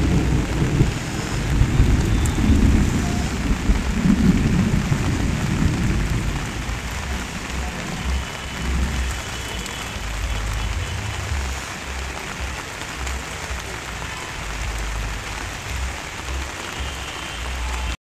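Heavy rain falling in a steady hiss. Low rumbling swells come and go through the first few seconds, then fade.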